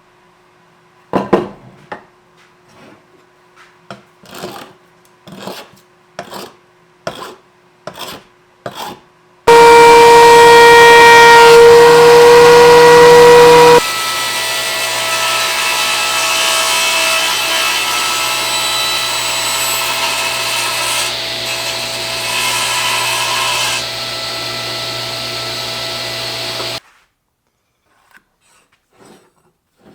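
Sandpaper rubbing on a wooden plate in about nine separate strokes. About nine and a half seconds in, a power tool starts with a loud whine. It settles to a steadier, quieter run after about four seconds, then stops suddenly near the end.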